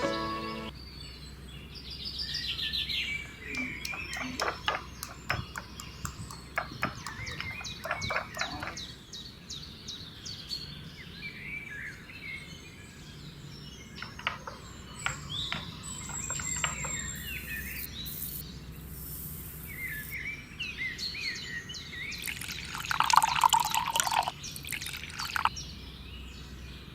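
A parrot chirping and calling in short, varied chirps and glides, with scattered sharp clicks in between; the calls get louder and busier near the end.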